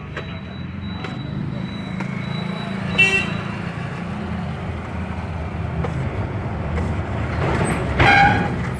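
A motor vehicle engine running close by with a steady low rumble, and two short horn toots: one about three seconds in and a louder one near the end.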